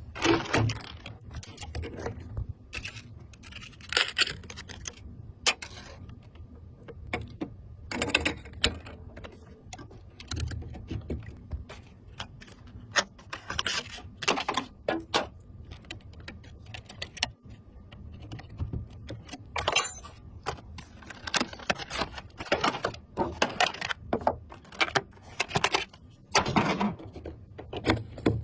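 Irregular clicks, taps and rattles of small hard objects being handled, over a steady low hum.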